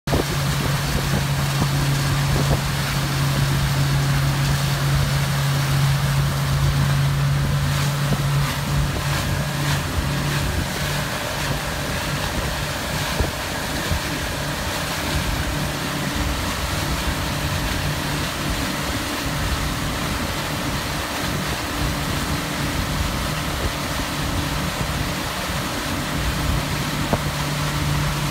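Motorboat engine running steadily at speed while towing a tube, with a low steady hum under the rush of wake water and wind buffeting the microphone.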